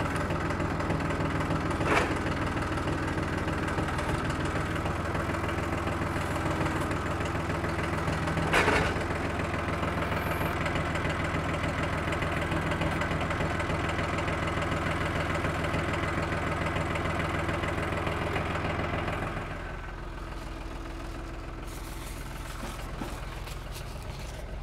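Tractor engine running steadily while its front loader carries a log, then dropping to a lower, quieter idle about twenty seconds in. Two short clanks stand out, near two seconds and near nine seconds in.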